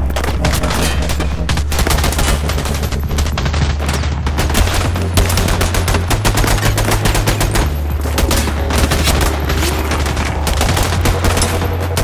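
Firefight: dense, rapid gunfire from several guns, shots following one another many times a second with no let-up, over a steady low drone.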